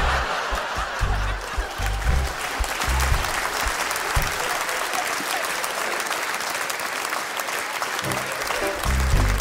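Theatre audience applauding, with the live stage band playing underneath; the band's low rhythmic beat is heard in the first few seconds and comes back near the end as the clapping thins.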